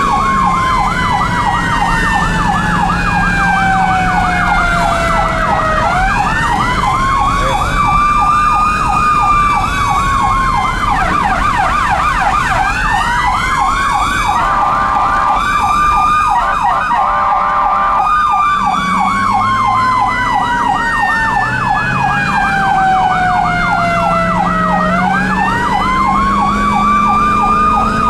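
Two ambulance sirens sounding together. A Federal Signal e-Q2B, the electronic version of the mechanical Q2B, winds slowly down and swoops back up in a long wail, twice. Under it runs the fast warble of a Whelen electronic siren's yelp, which switches to a quicker pattern and then a stepped tone for several seconds in the middle.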